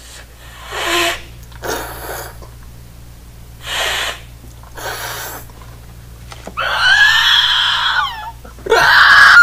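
A man screaming: a few short, raspy, breathy shrieks, then a loud, high, drawn-out scream about seven seconds in that falls away at its end, and another starting near the end.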